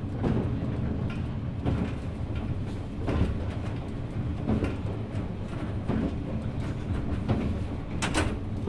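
Running noise inside a 183 series electric multiple unit motor car (MoHa 182-22) at speed: a steady low rumble, with wheel clicks over rail joints about every second and a half and a sharper click near the end.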